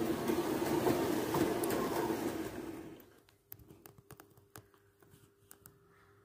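Gauge 1 model electric locomotive running along the track, its motor humming steadily over the rumble of wheels on rail. The sound fades away about three seconds in as the locomotive comes to a stop, leaving a few light clicks and a faint hum.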